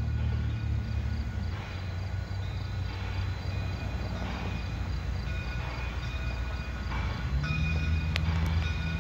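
Steam locomotive approaching slowly, its exhaust chuffing about once a second over a low steady hum.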